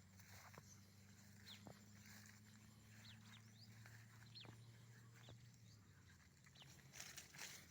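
Near silence: faint open-field ambience with scattered short, high falling chirps from small animals and a low steady hum that stops about six seconds in.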